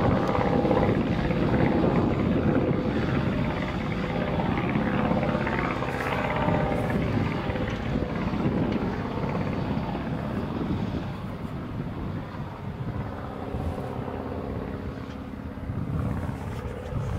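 Velocity canard kitplane flying overhead, its rear-mounted pusher engine and propeller giving a steady drone that grows fainter as the plane flies away.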